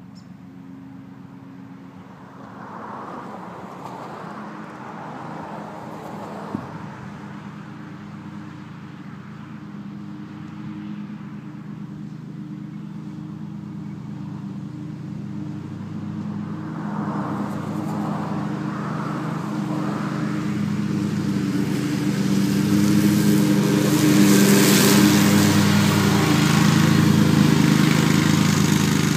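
Engine of a Hustler Super Z zero-turn ride-on mower running at speed as the mower drives toward the camera, growing steadily louder and loudest in the last few seconds.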